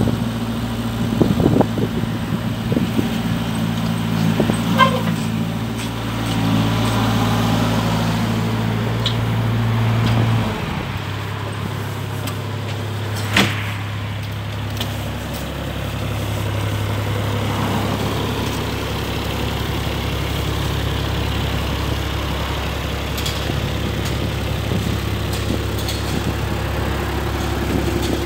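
JCB 8016 CTS mini excavator's small diesel engine running steadily, with scattered knocks in the first few seconds as the machine works. About ten seconds in the engine note drops and settles, and a single sharp clank follows a few seconds later.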